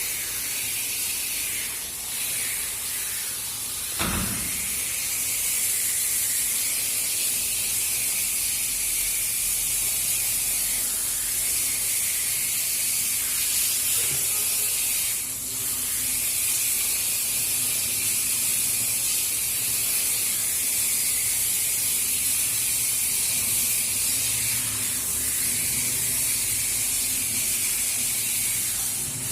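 Running water spraying steadily, a constant hiss, during a cat's bath, with a brief knock about four seconds in.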